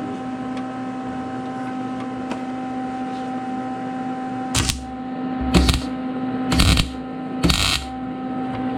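Steady electrical hum from shop equipment, broken about four and a half seconds in by four short, harsh bursts of a power tool or welder working on sheet-metal body panel, about a second apart.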